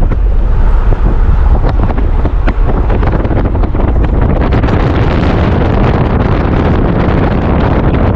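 Wind buffeting the microphone: a loud, constant low rumble with gusty crackles.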